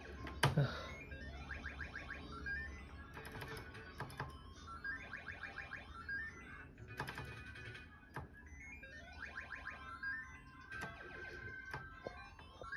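Golden Elephant King mahjong arcade machine playing its electronic game sounds: quick rising runs of beeps and short jingles, over and over, with sharp clicks here and there and a loud knock about half a second in.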